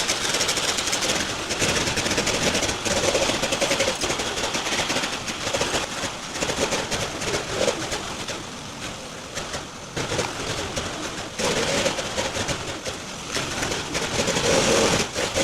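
A motor-driven machine running with a loud rushing noise that rises and falls in level.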